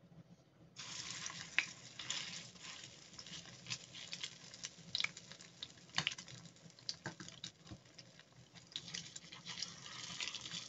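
Spoonfuls of minced meat with corn sizzling in hot oil in a frying pan, the hiss starting suddenly about a second in, with scattered clicks and scrapes of a metal spoon against the enamel bowl and the pan.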